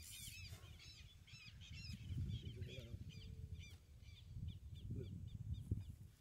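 Birds calling outdoors: a steady run of short, arched chirps, several a second, over a low rumble of wind on the microphone.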